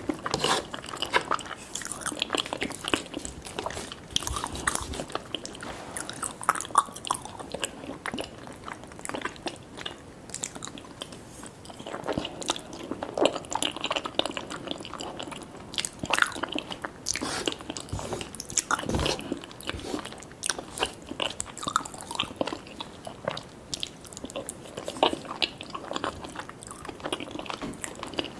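A person chewing and biting into food, with many short, irregular crunches and clicks.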